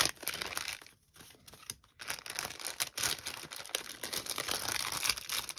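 Clear plastic packaging sleeve crinkling and crackling as it is handled, dropping away for about a second shortly after the start, then crinkling steadily again.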